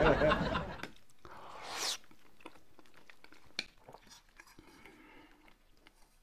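Quiet eating at a table: faint clicks of a spoon and chopsticks against dishes, with chewing. Voices trail off at the start, and a short rising swish comes about a second and a half in.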